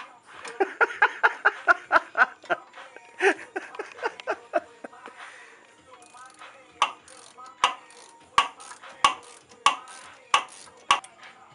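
Hand ratchet clicking as the suspension arm bolts are tightened: a quick run of clicks in the first couple of seconds, then slower, evenly spaced single clicks, about three every two seconds, each with a short metallic ring.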